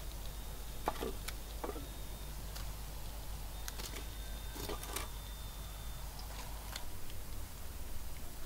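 Long chopsticks clicking and tapping against the wok rim and a wooden plate while fried scorpions are lifted out of the oil: a few scattered sharp taps over a steady low background rumble.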